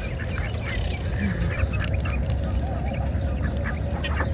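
Ducks quacking amid a busy chorus of short, repeated bird calls, over a steady low rumble.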